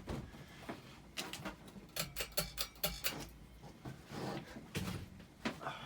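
Irregular clicks and light knocks, with a quick run of them from about one to three seconds in and a few more near the end, from handling a tripod that will not hold the camera in place.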